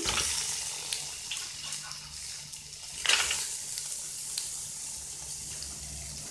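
Hot oil and water sizzling in a metal pot as small raw crabs are dropped in on top of onions and spices, with clicks of shells against the pot and a louder clatter about three seconds in.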